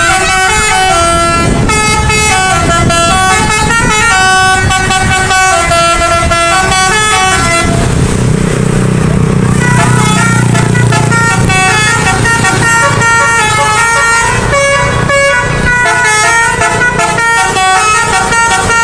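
Bus musical air horn of the 'basuri' telolet kind playing a tune of stepped notes that jump up and down in pitch. The tune breaks off for a moment about eight seconds in while a low drone comes up underneath, then carries on.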